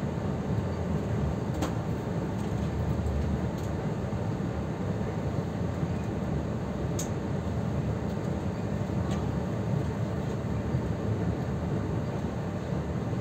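Steady low rumble of a Taiwan Railways Chu-Kuang express train running, with a few faint clicks.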